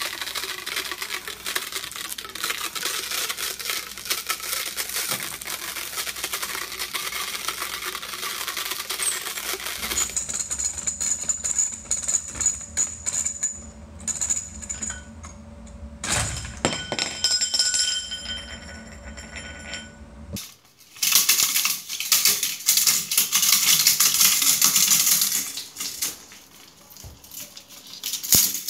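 Hand-cranked mechanical sound machines, one after another: first a dense run of clicks and rattles, then a quieter passage with a few faint ringing tones and a single sharp knock, then a loud, fast rattle from a gear-driven machine.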